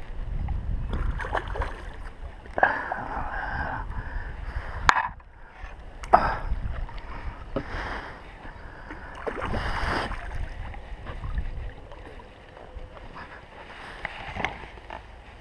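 Hooked carp splashing and swirling at the water's surface as it is played toward a landing net, with wind rumbling on the microphone. Two sharp knocks come about five and six seconds in.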